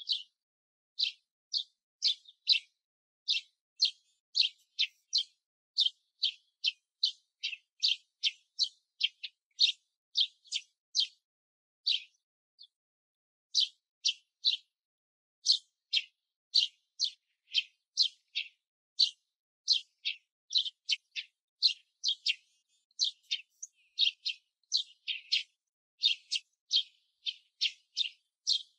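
Male Eurasian tree sparrow singing: a long run of short, sharp chirps at about two a second, with a brief pause about twelve seconds in. This repeated chirping is the male's advertising song, given from a perch while he waits for a female.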